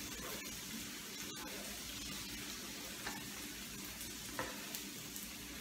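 Onions sizzling steadily in hot oil in a frying pan, with two light clicks a little past the middle.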